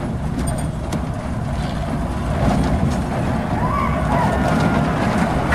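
Arrow Dynamics pipeline-coaster prototype train rumbling steadily along its steel track on a test run, with faint distant shouts about two-thirds of the way through.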